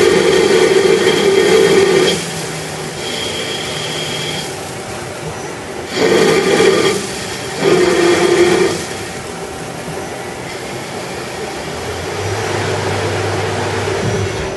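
CNC lathe running through its machining cycle: bursts of a loud motor whine, one at the start lasting about two seconds and two shorter ones about six and eight seconds in, over a steady machine hum, with a lower hum coming in near the end.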